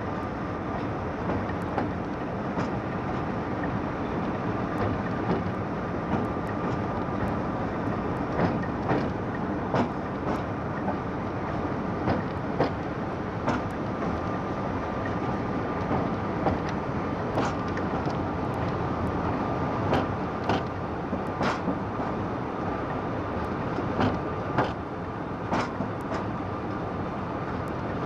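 British Rail Class 24 diesel locomotive 24057, its Sulzer six-cylinder engine running steadily, with sharp clicks scattered at irregular intervals.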